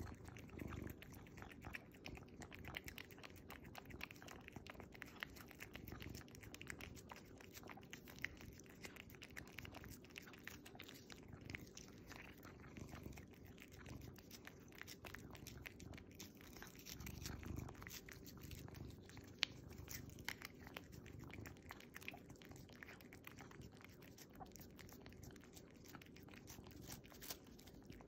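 Domestic cat licking a lickable tuna purée treat from a squeeze tube: quiet, rapid wet tongue clicks and slurps, over a steady low purr.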